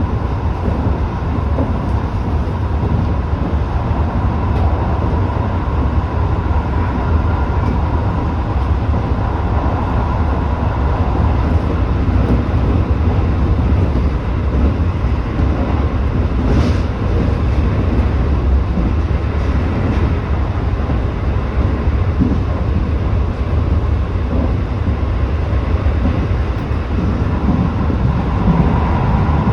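Tobu 8000-series commuter train running, heard from inside the front car: a steady low rumble of wheels and running gear with a faint steady whine. About 17 seconds in there is one brief sharp click.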